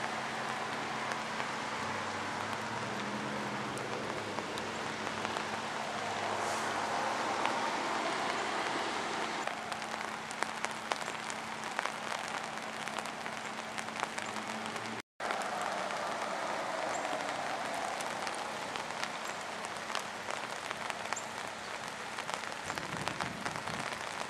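Steady hiss of rain over a flooded creek, with many sharp drop ticks close by. The sound cuts out for a moment about halfway.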